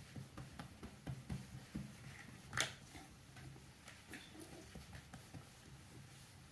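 Cat muttering in faint low grumbles while its back is massaged, most of them in the first couple of seconds, with one sharp click about two and a half seconds in.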